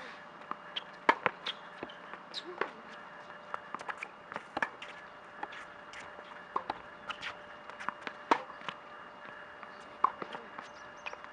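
Tennis rally on a hard court: sharp knocks of the ball coming off the rackets and bouncing on the court, every second or so.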